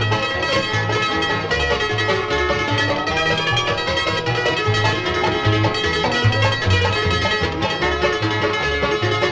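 Bluegrass band playing a fast tune, with banjo picking alongside guitar and mandolin over a steady bass.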